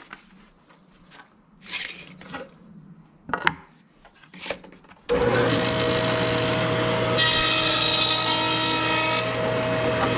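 A wooden hive-body board is handled on the table saw top with a few knocks, then the table saw switches on about five seconds in and runs with a steady hum. About two seconds later the blade cuts a quarter-inch-wide groove across the board for about two seconds, adding a harsh hiss, and then runs free again.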